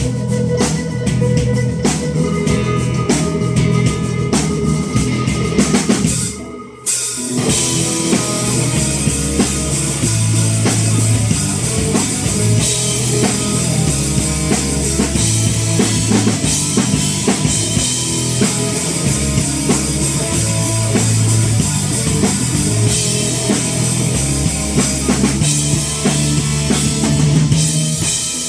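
Rock band playing a song's instrumental intro live, with drum kit, bass and guitar. The music breaks off for under a second about six and a half seconds in, then the full band comes back in.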